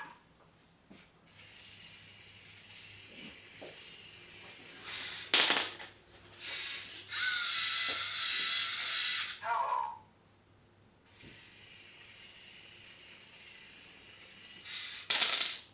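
LEGO MINDSTORMS EV3 motors and plastic gears whirring as a brick-sorting robot drives along its row of bins, in two stretches of steady high whine. Between them comes a louder, rattling run of the mechanism, and there are a couple of sharp clacks.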